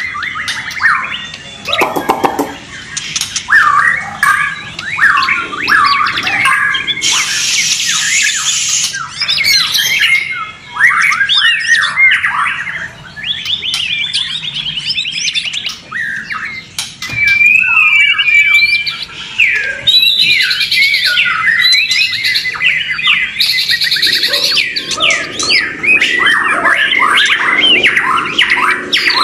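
Several white-rumped shamas singing at once in dense, overlapping song: quick rising and falling whistles mixed with rapid trills and harsher notes, with no break.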